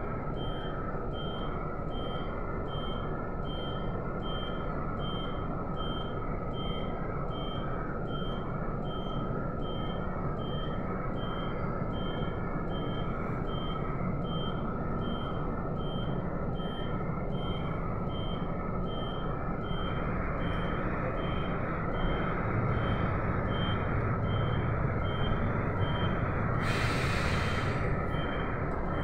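A city bus rumbling low at a standstill under a short high electronic beep that repeats slightly faster than once a second. About two-thirds of the way through the rumble grows louder as the bus moves off, and a short burst of hiss like air being released comes near the end.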